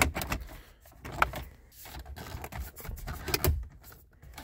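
Plastic dash trim of a Ford Focus being pressed and pushed by hand around a newly fitted touchscreen radio, giving scattered clicks, knocks and creaks as the panel is worked into place.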